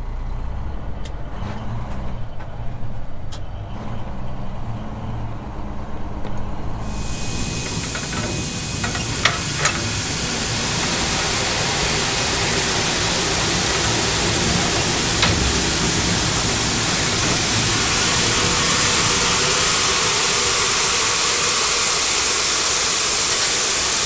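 Low engine rumble from inside a truck cab, then, about seven seconds in, a steady loud rushing hiss of shelled corn pouring out of a hopper-bottom grain trailer through the steel grate into an elevator's dump pit.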